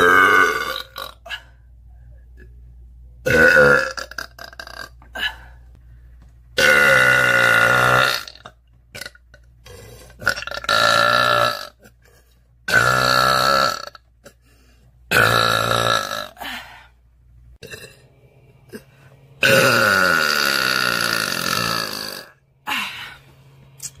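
A woman's loud burps, one after another: about seven in all, several drawn out, the longest lasting about three seconds near the end and falling in pitch.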